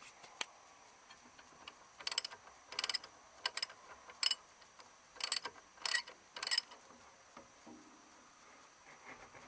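Ratchet wrench clicking in about seven short strokes, each a quick run of ticks.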